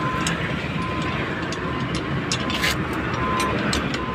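Steady low rumble of a heavy vehicle's engine running, with light metallic clicks and taps from a truck brake chamber being handled. A short beep sounds now and then at irregular intervals.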